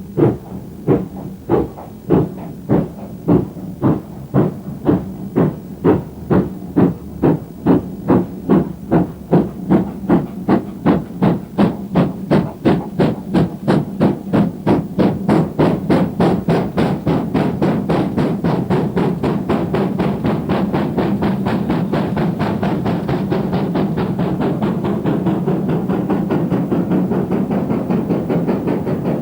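Great Western Railway steam locomotive starting a train from a stand, its exhaust beats sure-footed with no slipping. The chuffs come slowly at first, then quicken steadily until they run together into a continuous sound.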